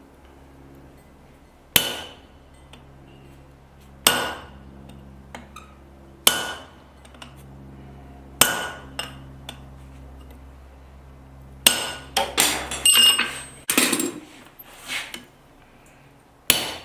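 Hammer blows on a hole punch, driving it into the hot steel boss of a pair of blacksmith's tongs: four single ringing strikes about two seconds apart, then a quicker run of lighter metallic clinks and hits near the end. A steady low hum runs underneath and stops about three seconds before the end.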